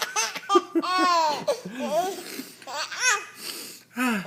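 Baby laughing in a string of short bursts, with one longer high-pitched squeal about a second in, set off by a fake sneeze.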